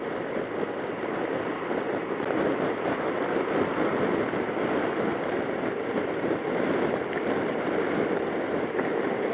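Steady rushing wind and road noise from riding a Suzuki Burgman 650 scooter, heard through a camera microphone covered with duct tape.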